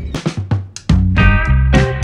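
Intro music: a few drum hits, then a band with bass and guitar comes in about a second in.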